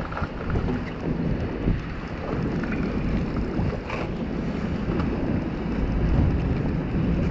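Wind buffeting the microphone, with water lapping around a small boat.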